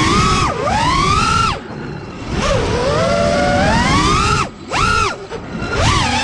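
The brushless motors of a 5-inch FPV quadcopter (Hypetrain 2306 2450kv), heard up close from the onboard camera, whining as the pitch rises and falls with the throttle. The whine drops away briefly about four and a half seconds in.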